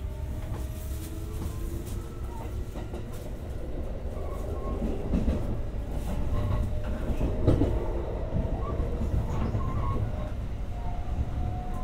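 Kintetsu 5800 series electric train running along the line, heard from inside: a steady low rumble of wheels on rail with scattered clicks over rail joints, a little louder in the middle. A rising motor whine fades out in the first second.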